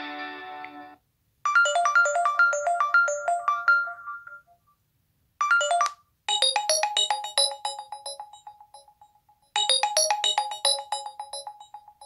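LG G6 built-in ringtones playing one after another: a held chord fades out, then short melodies of quick, bright notes follow with brief silent gaps between them. The last melody plays twice.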